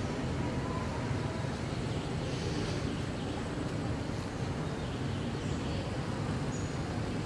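Steady low rumbling outdoor background noise, even in level throughout, with no clear single event.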